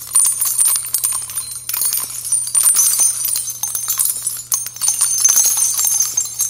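Rapid, irregular clicking and clinking of a typewriter-style sound effect as a title types out letter by letter, over a faint steady low hum.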